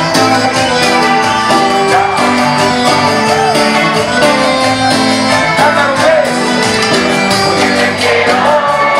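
Live band music played loud over the PA: a lead singer over drums, bass and other instruments, with a steady dance beat.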